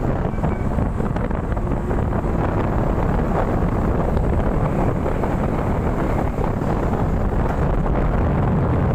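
Strong wind blowing across the microphone, a steady low rumbling buffet with no letup.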